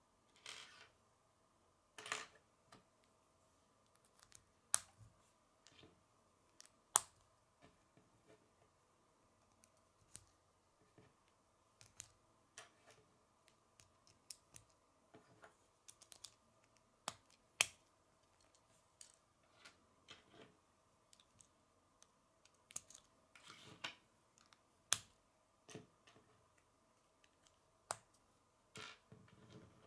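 K'nex plastic rods and connectors clicking as they are handled and snapped together: irregular sharp clicks, a few louder snaps among them.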